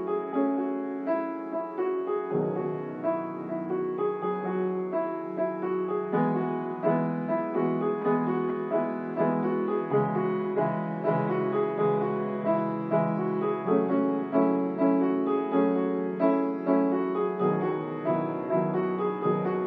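Piano music: a flowing stream of short notes over sustained lower notes.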